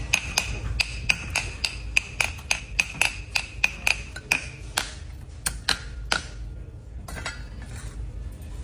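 Tableware being struck: a fast run of sharp clinks, about three or four a second, over a ringing metallic tone. The strikes thin out and stop after about five seconds.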